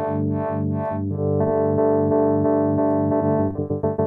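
Arturia MicroFreak synthesizer chord held through the Eventide H90's Armadillo multi-frequency tremolo, its upper tones pulsing about four times a second. Near the end the whole chord chops rapidly on and off.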